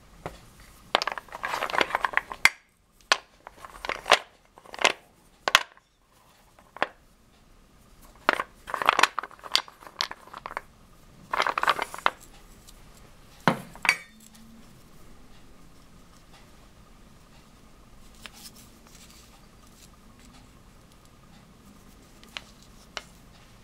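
Small turned wooden pieces clattering and knocking against each other and a stainless steel bowl as they are stirred by hand, in several bursts through the first half. After that only a faint steady hum and two light knocks near the end.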